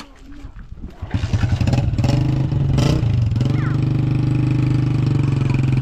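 An engine starts up about a second in and then runs steadily at an even pitch.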